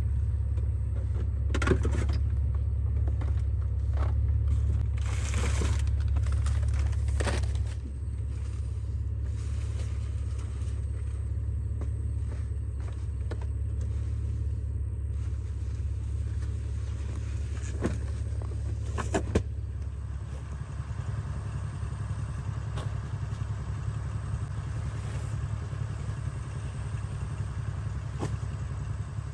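Car driving: a steady low rumble of engine and road noise, with a few sharp knocks and rattles, the loudest about two seconds in and near the 18-19 second mark. The rumble eases about a third of the way through.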